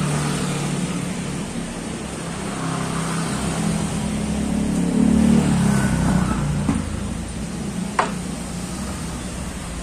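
A motor vehicle's engine running with a steady low hum that swells about five seconds in, with a single sharp knock about eight seconds in as wooden boards are handled.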